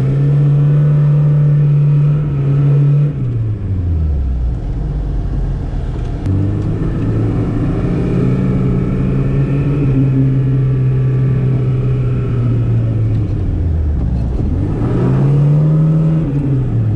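Classic VAZ Zhiguli four-cylinder engine pulling while driving: the revs hold steady for about three seconds, then fall away, pick up again about six seconds in and hold, then fall, rise and fall once more near the end.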